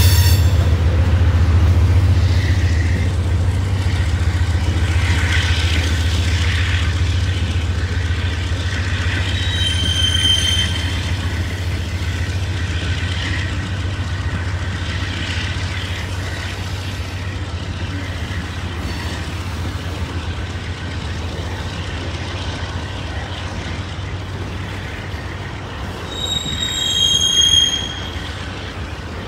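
Freight train's cars rolling past on the tracks below, a steady low rumble that slowly fades as the train moves away. High-pitched wheel squeal about ten seconds in and again, louder, near the end.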